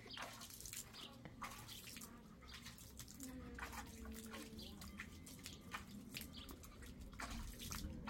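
A Shiba Inu splashing in a bowl of water: quick, irregular splashes and drips that keep coming.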